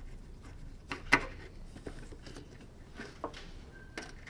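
Scattered clicks and knocks of hand tools and metal parts being handled while the convertible top frame is taken apart, the loudest knock about a second in.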